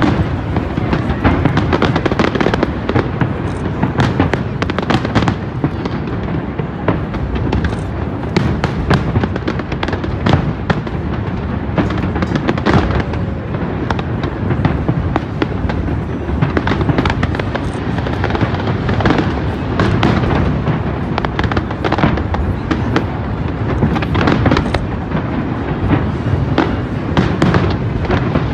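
Fireworks display of aerial shells bursting in rapid, overlapping bangs and crackles without a break, with music playing underneath.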